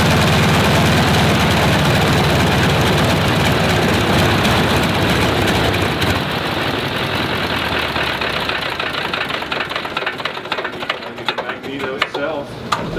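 Stinson L-1's nine-cylinder Lycoming radial engine running, then shut down about halfway through and winding down, the last separate strokes coming as the propeller slows to a stop near the end. The run has not cured the engine's trouble on its left magneto, which the crew now blames on the magneto itself.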